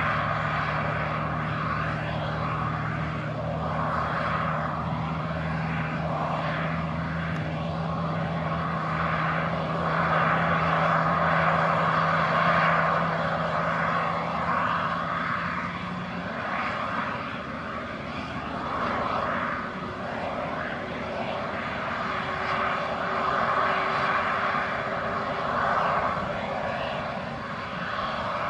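Airbus A320neo's CFM LEAP-1A turbofans running at idle as the airliner taxis slowly: a steady engine rush with a whine, swelling and easing a little. A low hum drops out a little past halfway.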